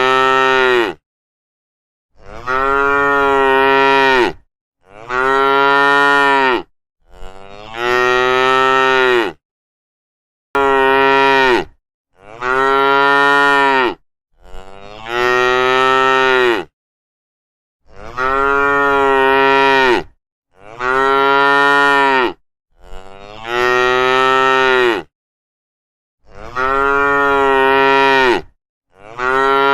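Cow mooing again and again: about a dozen long moos of roughly two seconds each, every one rising and then falling in pitch.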